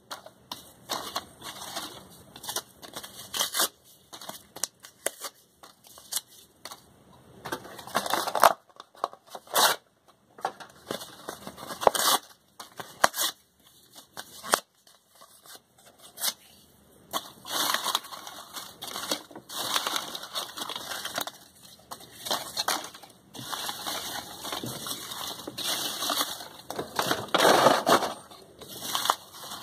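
Cardboard boxes being ripped apart and crumpled by hand, in irregular tearing and crackling bursts with a few brief pauses.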